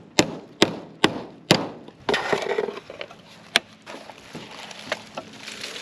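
A claw hammer knocks four times on a nailed-on metal rain gutter, about two blows a second. Then the thin gutter metal scrapes and rattles as it is pried loose from its nails, with one more sharp knock.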